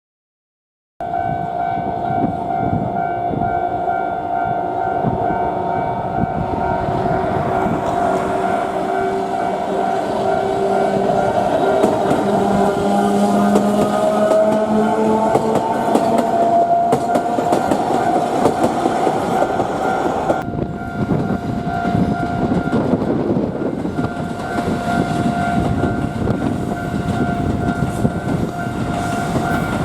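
Level-crossing warning bells ringing steadily in a repeating ding, while a train passes over the crossing with a rumble and wheel clatter and a whine that shifts in pitch.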